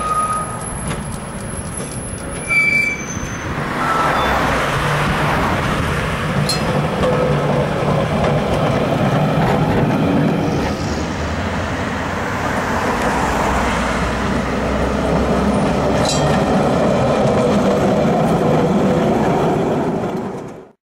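Tram wheels squealing as the tram rounds a curve in the track, high shifting squeal tones over the first few seconds, then giving way to steady road traffic noise for the rest.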